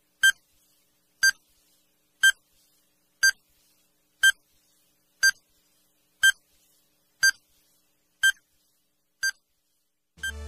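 Countdown timer sound effect: short, high electronic beeps, one a second, ten in a row, ticking off an on-screen stopwatch.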